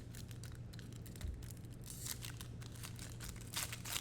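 Trading-card pack wrappers crinkling and tearing as packs are opened by hand, in a string of quick irregular crackles, over a low steady hum.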